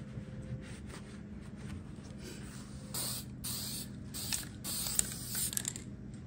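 Aerosol spray can of sealer hissing in several short bursts, then a longer one, as a fresh Blendal-stick colour touch-up on wood veneer is sealed. A sharp click is heard partway through.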